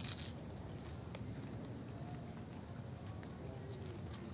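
A crunchy bite into a fried bean-sprout spring roll right at the start, then faint chewing over steady low background noise.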